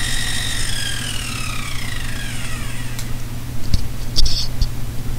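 Milling-machine spindle whining steadily, then winding down in pitch over a couple of seconds as it is switched off after the finishing pass, over a steady low motor hum, with a few sharp clicks near the end.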